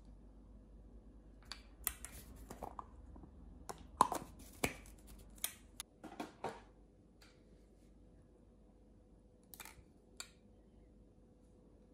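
Hard plastic yogurt-to-go cups being handled: a run of sharp clicks and knocks, the loudest about four seconds in, then two more clicks near the end.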